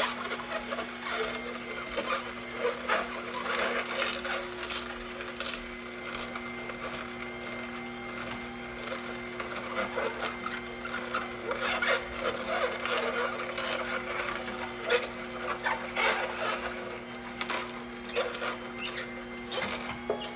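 Cold-press juicer's motor humming steadily while celery stalks are crushed in it, with constant irregular crackling and snapping.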